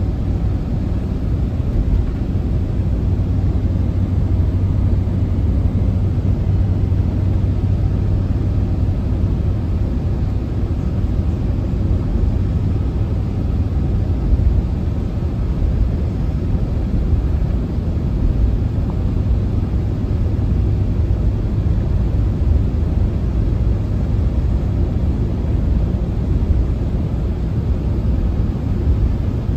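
Steady road and engine noise inside a moving vehicle's cabin: a low, even rumble with a steady low hum that fades somewhat about ten seconds in.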